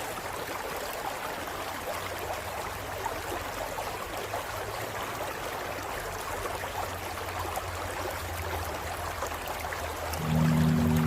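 Stream water running steadily over rocks. About ten seconds in, soft music with long held low notes fades in over it.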